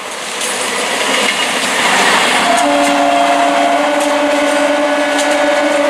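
Electric multiple unit local train approaching, the rush of wheels on rail swelling loudly over the first two seconds; about two and a half seconds in, a steady horn comes in and is held.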